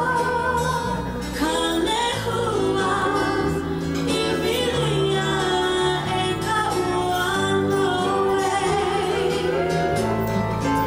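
A song with a singer over instrumental backing, the bass notes changing every second or two.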